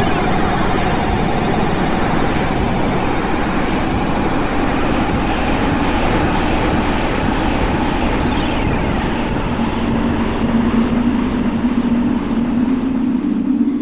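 Experimental noise composition playing back: a dense, steady wash of noise with a few faint falling glides through it. About ten seconds in, steady low droning tones come in as a second layer fades up.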